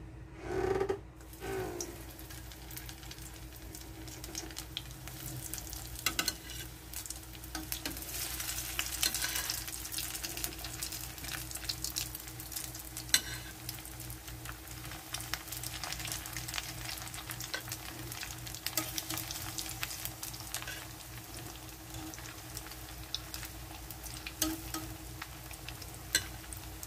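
Breaded chicken nuggets frying in hot oil in a frying pan: a sizzling, crackling hiss with frequent sharp pops. It sets in after a couple of seconds and thickens as more nuggets go into the oil, over a steady low hum.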